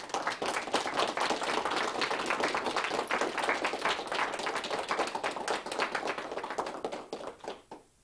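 Audience applauding: dense clapping that starts all at once and thins out and dies away near the end.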